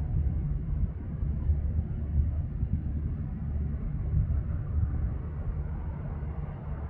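CRJ550 regional jet on final approach, still far off: a low, uneven rumble from its two rear-mounted turbofan engines.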